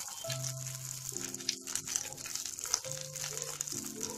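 Hot oil sizzling in a kadai around cumin seeds, dried red chillies, curry leaves and garlic cloves, with scattered small crackles. Soft background music with slow held notes plays along.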